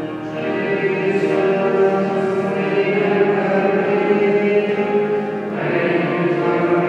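A group of voices singing a slow, meditative Taizé chant in long held notes, moving to a new chord about five and a half seconds in.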